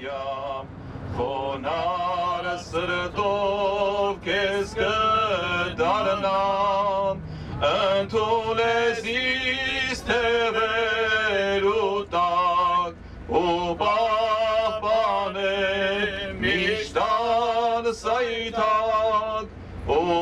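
A solo male voice singing a slow religious chant, holding long notes with a wavering vibrato and pausing briefly between phrases, over a steady low drone.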